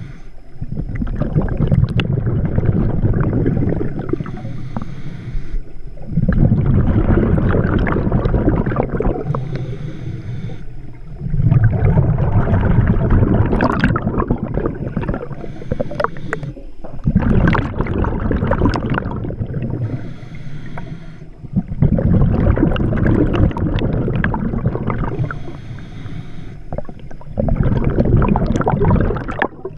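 Scuba diver breathing through a regulator underwater: loud rumbling, gurgling bursts of exhaled bubbles alternating with quieter inhalations, about one breath every five seconds.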